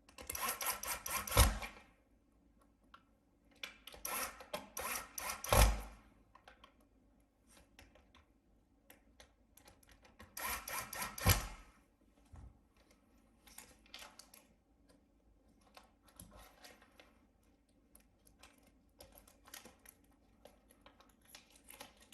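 Laptop parts being handled during reassembly: three bursts of scraping and rubbing, each ending in a sharp knock, followed by scattered small clicks and taps.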